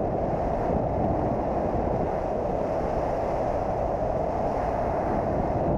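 Yamaha TW200 dual-sport motorcycle riding steadily at road speed: an even, dense rumble of engine, road and wind noise with no distinct engine note.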